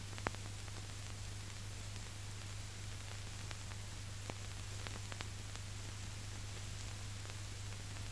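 Surface noise of an old film soundtrack: steady hiss and a low hum, with scattered clicks and pops. The loudest click comes just after the start.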